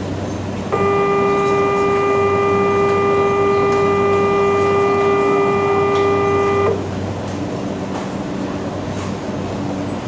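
Station platform departure buzzer sounding one steady, unvarying tone for about six seconds, the signal for a stopped train's departure. It starts just after the beginning and cuts off suddenly.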